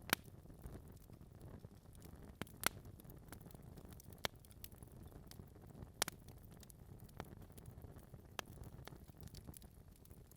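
Wood fire crackling in a fireplace: irregular sharp pops and snaps from burning logs, a few louder ones every couple of seconds, over a low steady rumble of the flames.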